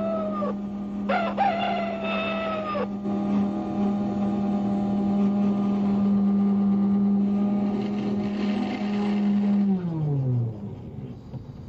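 A toy train whistle sounds twice, a short toot then a longer one, each note dropping off at its end, over a steady electric motor hum. The hum of the toy coaling station's motor holds while its hopper lifts, then winds down with falling pitch and fades near the end.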